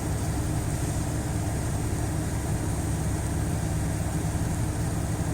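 Steady hum of a car idling in a gas-station queue, its engine and air-conditioning fan heard from inside the cabin.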